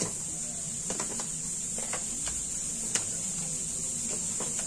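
Scattered light clicks and taps, about eight of them, the sharpest right at the start and just before three seconds in, as fingers handle a strip of insulating tape against an open laptop's casing and mainboard. A steady high hiss runs underneath.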